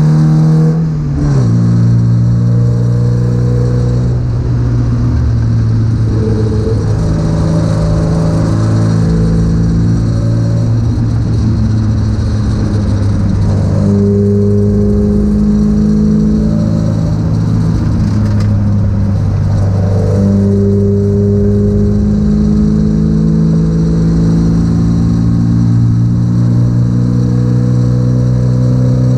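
MGB GTS engine running hard as the car is driven at speed. The revs drop sharply about a second in, then hold fairly steady with small rises and falls.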